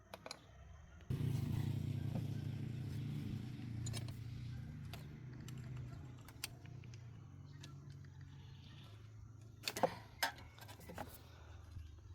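An engine starts about a second in and runs steadily, slowly fading, with a few sharp clicks near the end.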